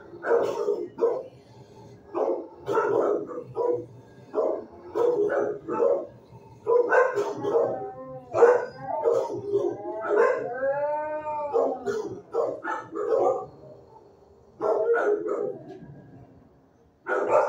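Shelter dogs barking in a kennel block, a run of repeated barks broken by a drawn-out howl that rises and falls in pitch about ten to twelve seconds in.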